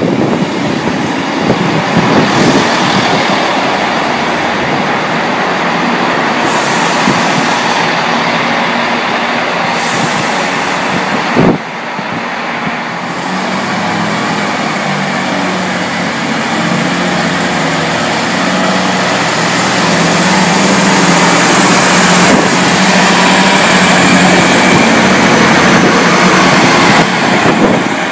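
Class 158 diesel multiple unit running alongside the platform, its diesel engines droning over the rumble of the train. There is a sharp click about a third of the way in, then a steady engine hum that grows louder toward the end.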